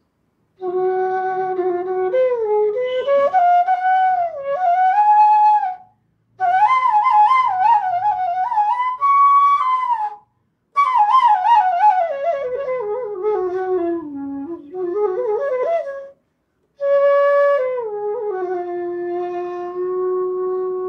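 A Punam Flutes F-sharp bass bansuri, a bamboo transverse flute, playing a slow melody in four phrases with short pauses between them. The notes are joined by slides and ornamented bends. The melody starts on a long held low note and comes back to it at the end.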